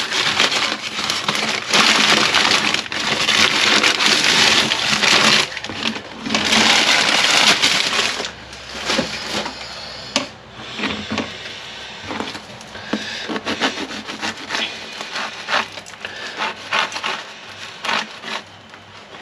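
A knife sawing through a crusty bread roll: two long stretches of loud crunching and crackling of the crust, then a string of short knife scrapes and clicks against the roll and the board.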